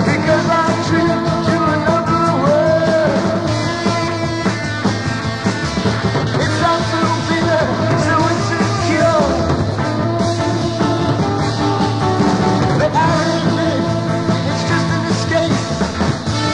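Sixties garage psychedelic rock song playing: a full band with guitar, bass and drums, and a lead line bending in pitch.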